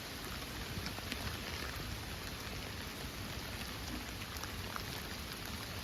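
Heavy rain falling steadily: a dense, even hiss with scattered sharp ticks of individual drops striking nearby surfaces.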